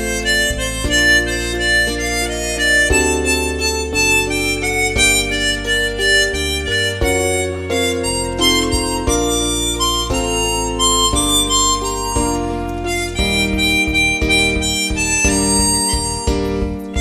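Harmonica playing a slow melody, the notes changing every half second to a second, often with several notes sounding together as chords.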